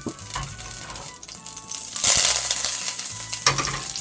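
A pat of butter melting and sizzling in hot oil in a stainless steel frying pan, the sizzle growing louder about two seconds in as the butter starts to foam.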